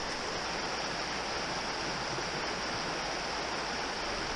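Small woodland stream running over rocks and around fallen logs: a steady rush of moving water.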